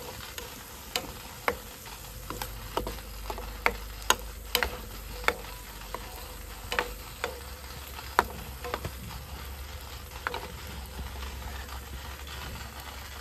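Scrambled eggs with zucchini and cherry tomatoes sizzling in a ceramic-coated frying pan as a plastic spatula stirs and scrapes them, with sharp clicks of the spatula knocking the pan about once or twice a second. The clicks thin out near the end.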